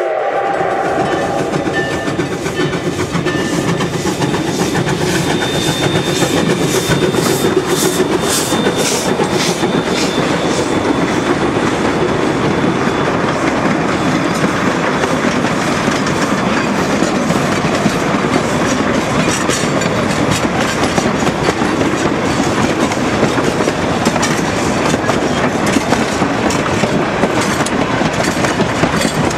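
Huckleberry Railroad steam train No. 152 and its wooden passenger coaches rolling past close by. The wheels click over the rail joints, with a run of sharp clicks a few seconds in, then a steady rolling noise as the coaches go by.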